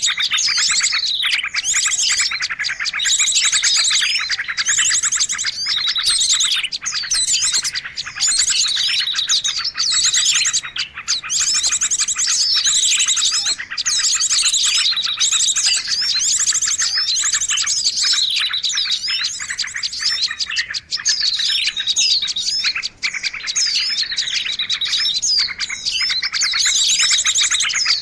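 Dense chorus of many small songbirds chirping and trilling at once, with fast overlapping high calls and no pauses: a bird-lure recording for calling in small birds.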